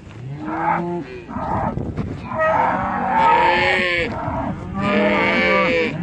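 A herd of cattle mooing, many calls overlapping one another, growing louder about two seconds in.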